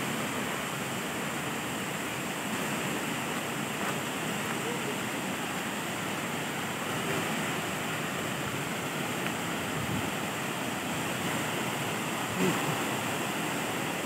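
Waterfall cascading down a sloping rock face into a pool: a steady, even rush of water. A short faint sound rises above it about twelve seconds in.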